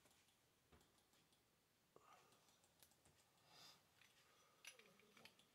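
Near silence, with a few faint clicks and soft handling noises scattered through it.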